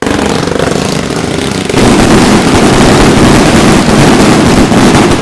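Loud electronic intro music that starts abruptly and becomes louder and fuller a little under two seconds in.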